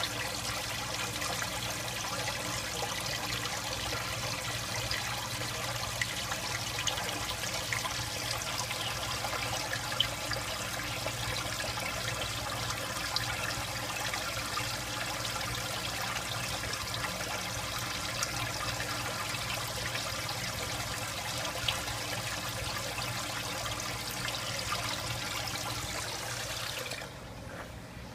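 Water running in an aquarium: a steady trickling and bubbling with fine crackles, over a low steady hum. It drops abruptly in level near the end.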